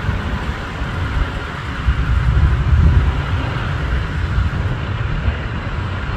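A jet on final approach, heard from a distance as a steady low rumble with a hiss above it.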